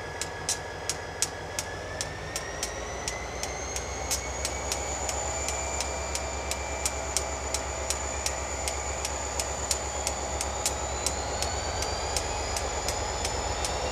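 Canadian Pacific diesel freight train heard off-screen: a low engine rumble with a thin whine that slowly rises in pitch, over a steady clicking about twice a second, growing gradually louder.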